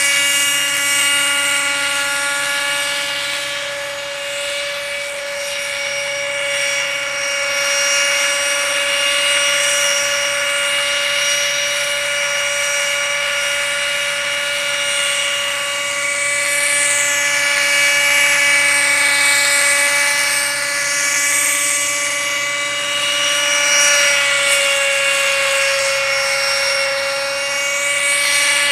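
Helicopter running: a steady high-pitched whine of several even tones over a rushing hiss. The hiss swirls as the helicopter shifts position in the middle stretch.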